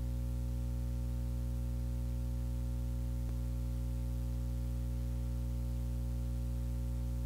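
Steady low drone of several held tones, unchanging throughout, with a faint tick about three seconds in.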